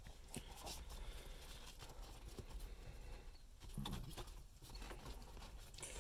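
Faint scattered clicks and light knocks of hard plastic as a plastic shifter housing is handled and seated over an Audi S3's exposed gear-selector assembly.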